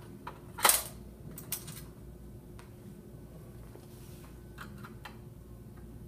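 A sharp metallic click just under a second in, then a few lighter clicks and taps, as a Phillips screwdriver works the screws of the end caps on a retractable banner stand's metal base.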